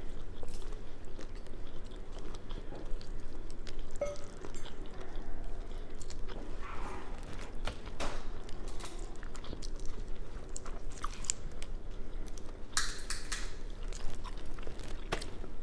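Close-up chewing and biting while eating seafood boil with the fingers, with many small scattered clicks and smacks.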